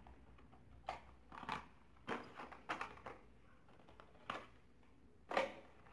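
Hands shuffling through carded die-cast toy cars in plastic blister packs: a handful of short, irregular clicks and crinkles of plastic and card, the strongest near the end.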